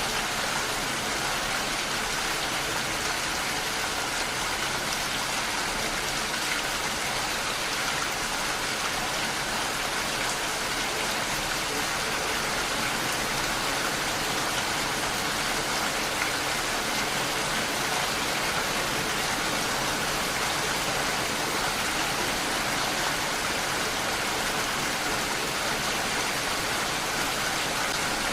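Steady rain falling, a constant even hiss of drops on surfaces with no breaks or changes.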